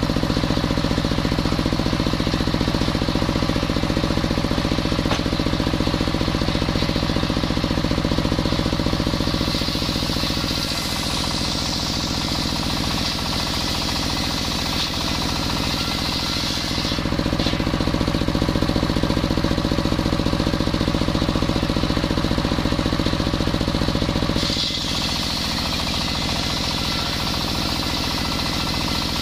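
Table circular saw ripping a waru (sea hibiscus) log, its powered drive running steadily with a fast even pulsing under the blade noise. A brighter hiss of the blade cutting through the wood comes in twice: from about a third of the way in to just past halfway, and again near the end.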